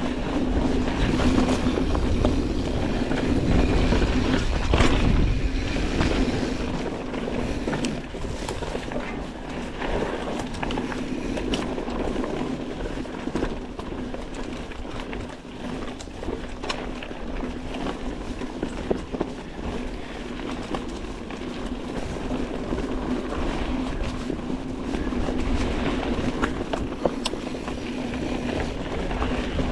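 Mountain bike riding down a dirt singletrack: tyres rolling over dirt and rock with a constant rattle, and frequent clicks and knocks from the bike over bumps, over a steady hum.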